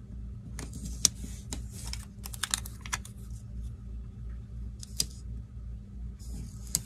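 Paper stickers being peeled and pressed onto a planner page by hand: a scatter of sharp ticks and clicks from fingertips and nails on the paper, with short soft rustles of the sticker sheet. A steady low hum runs underneath.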